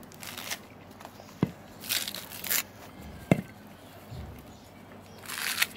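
Dry coconut husk being torn and pulled off the nut by hand: short rustling, tearing sounds of fibre coming away, with two sharp knocks, one about a second and a half in and one about three seconds in.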